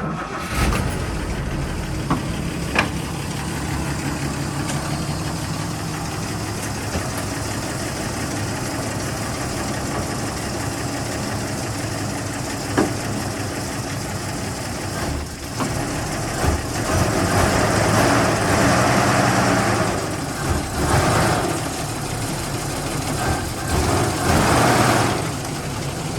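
A machine motor running steadily with a low hum and a few sharp clicks. It gets louder and harsher from about two-thirds of the way in and again near the end.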